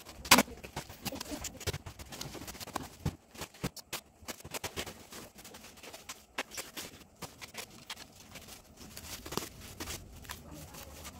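Cardboard packing and plastic wrap rustling and crackling as they are pulled off a new electric bicycle by hand, in irregular bursts of crinkles and small knocks, with one sharp crack just after the start.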